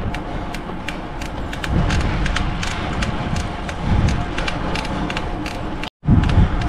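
Riding noise of a bicycle climbing a road, picked up by a camera riding along: a low wind rumble on the microphone that swells now and then, with many short sharp clicks and ticks. The sound cuts out for a moment near the end.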